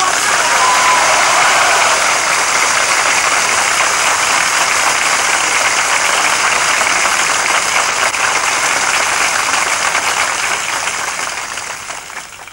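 A large crowd applauding: dense clapping that starts suddenly, holds steady, and fades out near the end.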